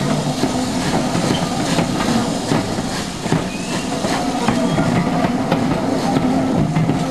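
Steam-hauled passenger train running past close by, its carriage wheels clicking over the rail joints in an irregular stream of sharp knocks, with steam hissing.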